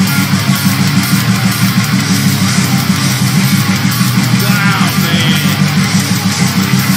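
Heavy metal music with distorted electric guitars and drums playing a fast, evenly pulsing riff, with a short sliding high note about four and a half seconds in.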